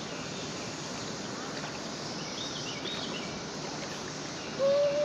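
Steady outdoor background hiss, with a few faint high chirps around the middle and a brief voiced sound near the end.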